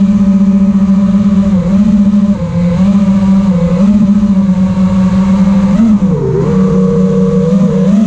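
5-inch FPV quadcopter's motors and propellers buzzing loudly, recorded by the onboard camera, the pitch dipping and rising over and over as the throttle changes, with a deeper drop about six seconds in.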